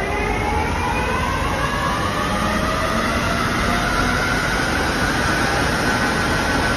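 POREBA TRB 135 N CNC lathe's spindle drive spinning the chuck up to speed, toward about 875 rpm. Its whine rises in pitch for about four seconds, then holds steady.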